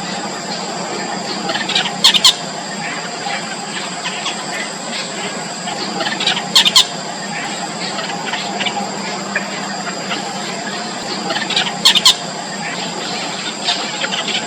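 Yellow bittern chicks squeaking in the nest: a steady run of short, high calls, with three louder bursts of rapid squawks about five seconds apart.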